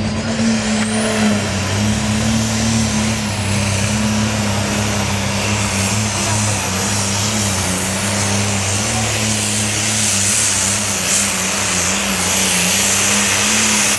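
Super farm class pulling tractor's turbocharged diesel engine running hard with a steady engine note. A high turbo whistle climbs over the first second or so and then holds steady.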